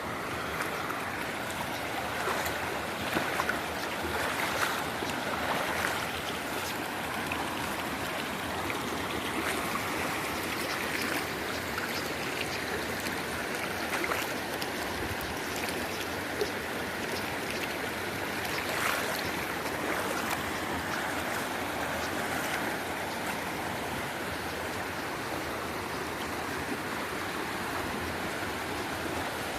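Stream of water flowing steadily, an even rush with small brief splashes now and then.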